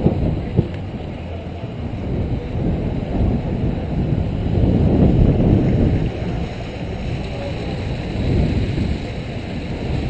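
Wind buffeting the microphone over the rolling noise of a mountain-coaster bobsled car running down its steel tube rails. It swells about five seconds in.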